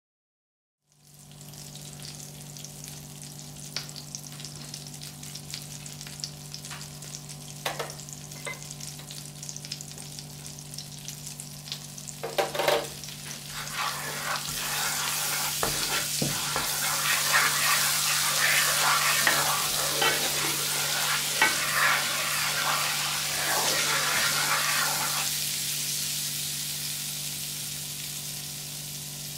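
Butter sizzling as it melts and foams in a nonstick frying pan, with a wooden spatula knocking and scraping against the pan as it stirs. The sizzling grows louder about halfway through, then eases a little near the end. A steady low hum runs underneath.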